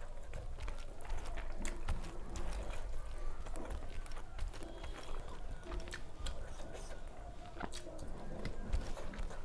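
Close-up chewing and eating sounds: many small wet mouth clicks and smacks scattered irregularly throughout.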